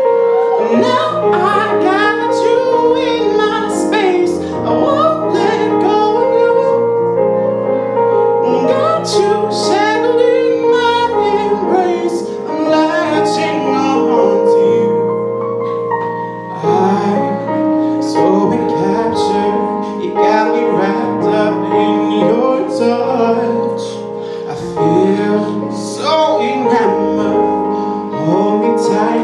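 Music: female singing over sustained chords, with sharp percussive hits.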